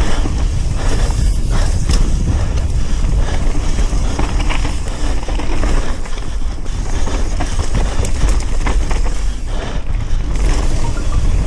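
Mountain bike riding down a bike-park trail: tyres rolling over dirt and stones with constant rattling and knocking from the bike over bumps. Wind buffets the microphone with a heavy low rumble.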